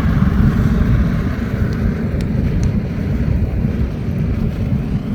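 Steady low rumble of a homemade coal furnace running with a ventilator blowing air into the fire, with a few faint crackles from the burning fuel.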